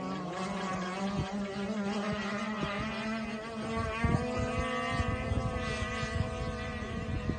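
Twin Zenoah two-stroke petrol engines of an RC racing catamaran running at speed, a steady distant drone that rises slightly in pitch about halfway through. Wind thumps on the microphone, loudest about four seconds in.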